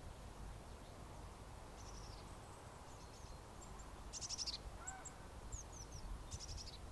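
Faint birdsong: short high chirps, quick trills about four seconds in and again near the end, and a few down-slurred notes, over a low steady background rumble.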